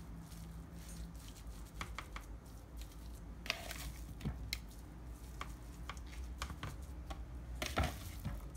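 Hands squishing and patting a moist ground-meat and herb stuffing, scooping it out of a bowl and pressing it onto a raw chicken, with scattered soft clicks and crackles, a couple of them louder near the middle and near the end.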